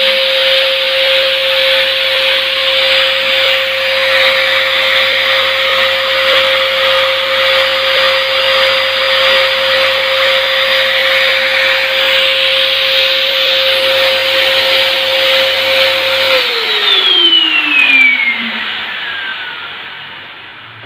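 Electric ULV cold fogger's blower motor running steadily, a high whine over rushing air as it sprays a fine mist of plain water. About sixteen seconds in the motor winds down, the whine falling in pitch and fading.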